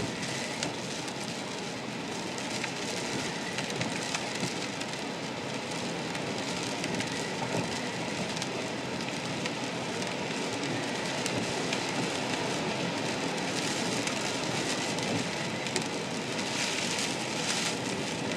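Strong wind and heavy lake surf pounding on a breakwater: a steady rushing, crackling noise.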